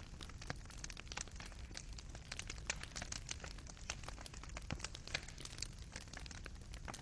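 Fireplace fire crackling, with irregular small pops and snaps of burning wood and coals over a soft low rumble.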